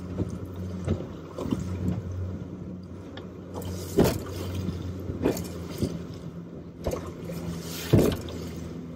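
Jet boat's engine running steadily as the hull pounds through rough, wind-driven chop. Several hard slaps come as the boat slams into waves and spray hits, the loudest about four and eight seconds in.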